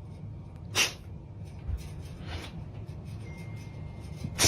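A dog blowing three short, sharp breaths through its nose, sneeze-like; the last is the loudest, near the end.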